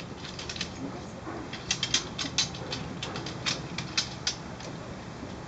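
Metal clicking and clinking of several socket bayonets being drawn and fixed onto musket muzzles by a squad at once: a ragged scatter of sharp clicks over about four seconds, the busiest in the middle.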